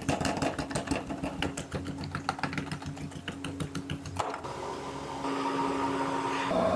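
Rapid, irregular tapping, several strokes a second, for about four seconds, then a steadier hissing sound with a low hum.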